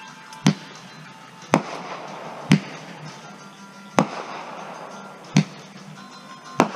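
Aerial fireworks bursting overhead: six sharp bangs at uneven gaps of about one to one and a half seconds, some followed by a brief crackle.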